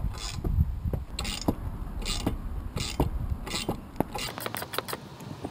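Ratcheting spanner turning the nut of a homemade bolt-and-socket bush press, clicking in a burst on each return stroke about every three-quarters of a second as the press pushes a rubber suspension bush into the trailing arm. Near the end the clicks come quicker and lighter.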